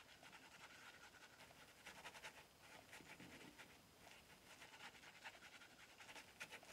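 Faint, repeated scratchy strokes of a Shlyuz Bublos double-edge safety razor cutting stubble, in short runs with brief pauses between, over shaving cream that has begun to dry.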